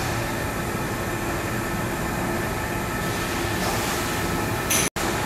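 Steady din of ricotta packaging machinery and fans running, with a faint steady hum through it. It cuts out for an instant near the end.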